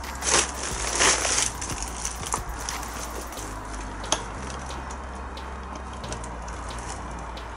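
Crunching and scraping of footsteps over debris, loudest in the first second and a half and quieter after, with one sharp click about four seconds in and a steady low rumble underneath.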